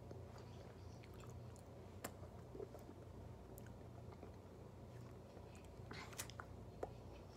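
Faint wet mouth sounds of someone eating an ice pop: scattered lip smacks and clicks, busiest about six seconds in as he sucks on it, over a low steady hum.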